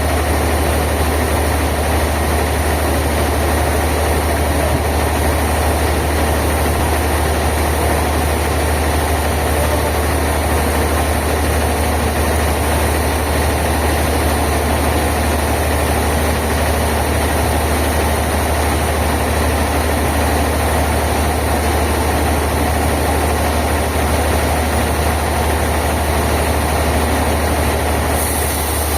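Sawmill machinery running steadily with an even, low hum and no change in load.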